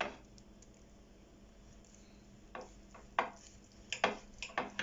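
Kitchen knife slicing a cooked vegetarian gluten roll, the blade knocking through onto the board in a handful of sharp taps, most of them bunched together in the last two seconds.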